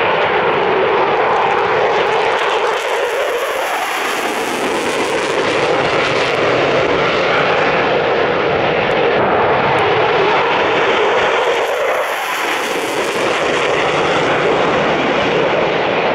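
F-15 Eagle climbing away after takeoff in afterburner: the loud, steady noise of its two turbofan engines.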